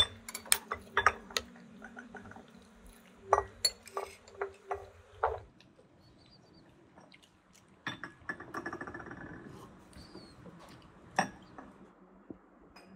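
A metal teaspoon clinking against a cut-glass jam bowl and china saucers: a quick run of sharp clinks over the first five seconds, then only a few scattered clinks.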